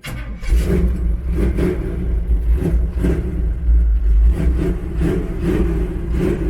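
A Chevrolet 402 big-block V8 with a Comp Cams 268 Xtreme Energy cam starts abruptly and runs, getting louder for a moment about four seconds in.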